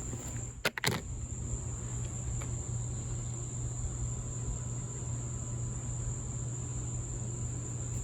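Steady high-pitched insect drone with a low steady hum beneath it, and two sharp clicks close together about a second in.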